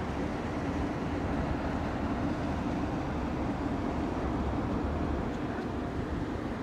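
A boat's engine running steadily underway: a continuous low rumble with a faint steady hum.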